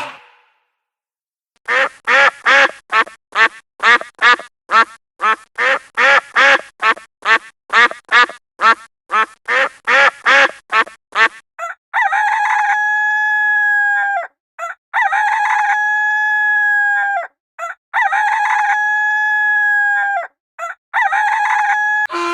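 Chicken clucking in a quick run of short calls, about two or three a second, for some ten seconds. Then a rooster crows four times, each crow about two seconds long.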